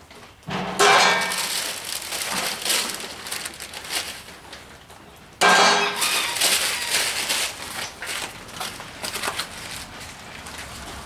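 Packing material and cardboard being rustled and crinkled while parts are pulled from a box. Two loud bursts start suddenly, about half a second in and again about five seconds later, each fading into crackling.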